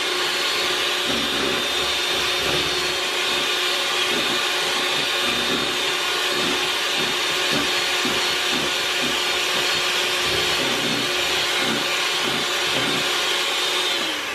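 Hamilton Beach electric hand mixer running steadily, its beaters whipping instant coffee, sugar and water into a thick foam in a plastic bowl. Its whine starts to wind down at the very end.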